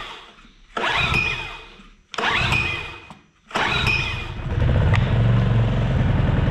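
Honda EX650 portable generator's small four-stroke engine being cold-started on choke after months of standing: the recoil starter cord is pulled three times, and the engine catches on the third pull about four and a half seconds in and settles into a steady run.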